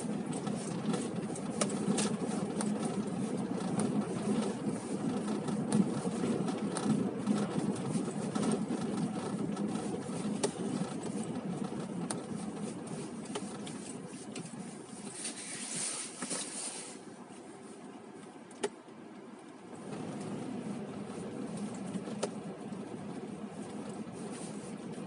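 City street traffic: cars running past in a steady noise with scattered small clicks. About two-thirds of the way through there is a brief hiss, then the traffic quietens for a few seconds, with one sharp click, before it picks up again.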